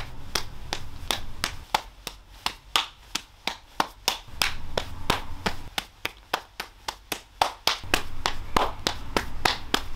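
A rapid run of open-hand slaps to a face, sharp separate smacks at about three or four a second, kept up without a break.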